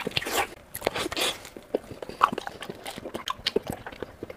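Close-miked eating sounds: wet chewing and lip smacking, with many short irregular clicks and a few longer sucking smears.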